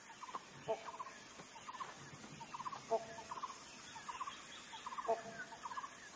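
Faint wild animal calls: a short call repeats about every two seconds, with quick chattering calls in between.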